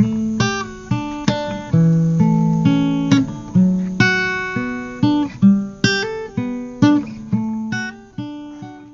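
Background music: acoustic guitar playing plucked notes and chords, each note ringing and fading before the next.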